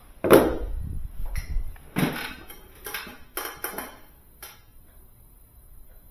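A string of knocks and clinks from metal tools and fittings being handled during refrigeration service work, about half a dozen in the first four and a half seconds, the loudest near the start.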